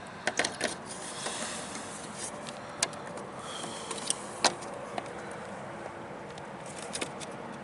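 Scattered sharp clicks and light knocks of truck fairing retaining clips and the fairing panel being worked and snapped by hand, over a steady background hiss.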